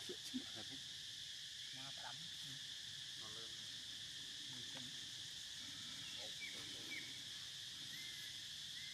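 Steady, high-pitched drone of forest insects, with a few short, faint animal calls and chirps scattered through it and a small click just after the start.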